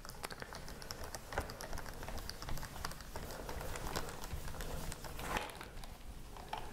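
Screwdriver driving the last screw into the plastic underside of a laptop: a rapid run of small clicks and scrapes, with a few sharper clicks.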